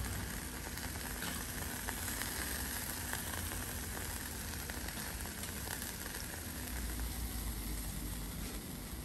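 Pieces of beluga sturgeon sizzling on a hot stone slab: a steady hiss with scattered faint crackles.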